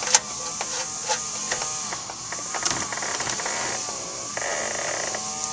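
Oil drain plug being threaded back into a Jeep's oil pan by hand, with a wrench against it. There is a sharp metallic click at the start, then a few fainter clicks and scrapes over a steady hiss.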